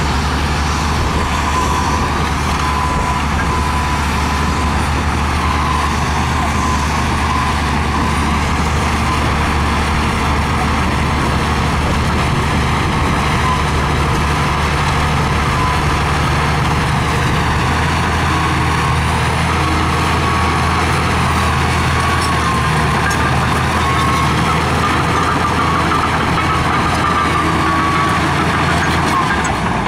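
LiuGong crawler bulldozer's diesel engine running steadily under load as the dozer pushes dirt, with a high whine that wavers up and down.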